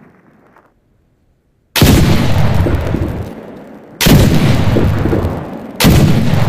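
Blunderbuss flintlock pistol firing three loud shots, the first about two seconds in and the others about two seconds apart, each dying away slowly over a second or more.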